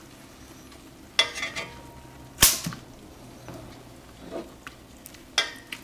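Kitchen tongs turning lamb shanks in a nonstick pot: a few clacks and scrapes of the tongs and meat against the pot, the sharpest click about two and a half seconds in, over a faint steady sizzle from the simmering gravy.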